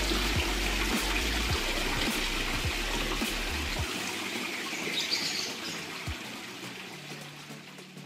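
Steady splashing of a small artificial waterfall pouring in a thin sheet from cement cliff-relief spillways into a pond, under background music with low bass notes that drop out about halfway through. The whole sound fades down toward the end.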